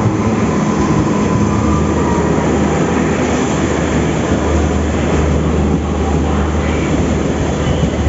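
Passenger train hauled by a WAP-5 electric locomotive rolling into a station, a steady loud rumble of wheels and coaches on the rails.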